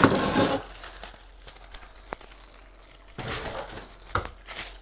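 Plastic bag rustling and crinkling while frozen fish are handled and taken out, in two bouts with a single sharp click between them.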